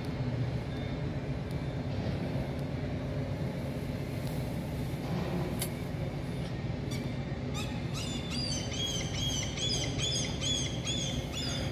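Steady low rumble of dry-dock machinery and background noise; from a little before the eight-second mark, a bird calls over it, a quick run of short, high, arched notes, about two to three a second.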